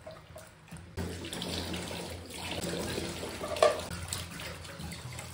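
Tap water running into a stainless steel kitchen sink and splashing through a plastic bowl as food is rinsed under it; the flow comes on strongly about a second in. A sharp knock about three and a half seconds in.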